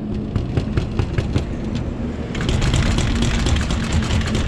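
A vehicle engine idling with a steady low hum. Over it, cloth rustles and clicks against the microphone, and a brushing hiss joins about two seconds in.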